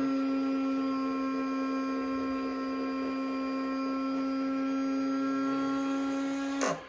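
Small electric gear motor of an HG P602 RC MRAP turning its rotating roof turret a full 360°, running with a steady hum. Near the end it stops with a brief falling pitch.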